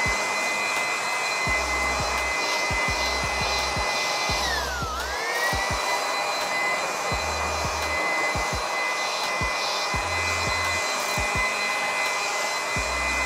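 Asian Paints TruCare 500 W handheld electric air blower running at full speed: a high, steady motor whine over a rush of air. About five seconds in, the pitch dips briefly and then climbs back up.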